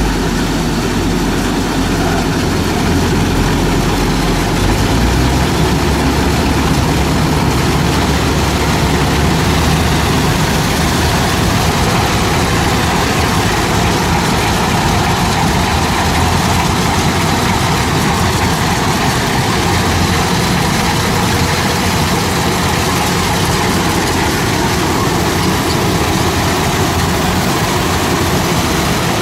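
Rice harvester engine running steadily, with a heavy low rumble that eases slightly about five seconds in.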